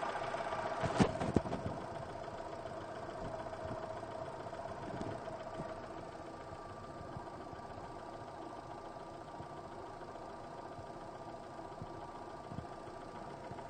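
Daewoo Gentra engine idling with a steady knock that the owner calls a knocking sound. Two sharp clicks come about a second in.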